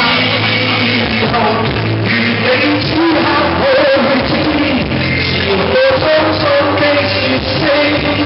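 Karaoke: men singing into handheld microphones over loud rock-style backing music, both amplified.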